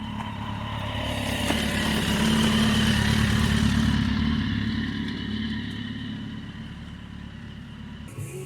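Motorcycle engine running steadily, growing louder over the first couple of seconds, then fading gradually as it draws away.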